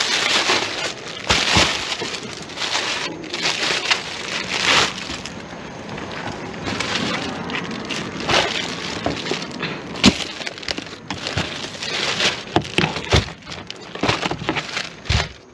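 Rustling and crinkling with scattered sharp knocks and clicks, as produce and bags are handled and sorted.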